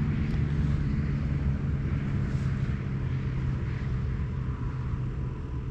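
Steady low engine drone with a few held tones, slowly growing fainter.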